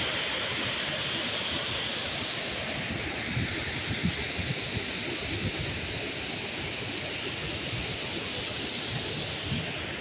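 Steady rush of a waterfall pouring over a rock ledge, a full even hiss of falling water that grows a little fainter near the end. Now and then wind buffets the microphone with low rumbles.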